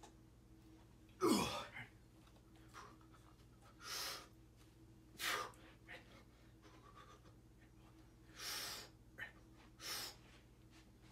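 A man's sharp, forceful breaths as he strains to press a heavy dumbbell from the floor: a loud grunt that drops in pitch about a second in, then several hard exhales a second or two apart.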